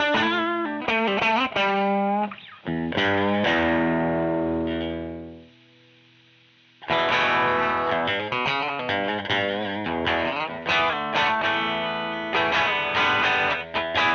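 Distorted electric guitar played through a Joyo JF-22 Oxford Sound amp-sim pedal: picked riffing, then a chord left to ring and fade out, a pause of about a second, then busy driven riffing again.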